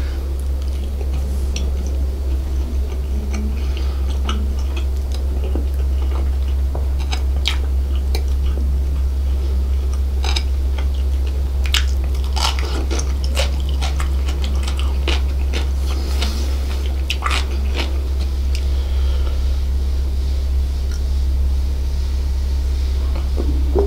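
Close-miked biting and chewing of devilled chicken sausage: many short mouth clicks and crackles, scattered unevenly, over a steady low hum.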